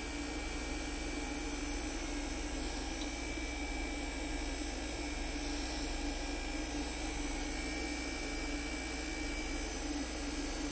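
Steady hum and hiss of a Cruise N Comfort 12-volt mini-split air conditioner running while it is charged with refrigerant from a can through manifold gauge hoses.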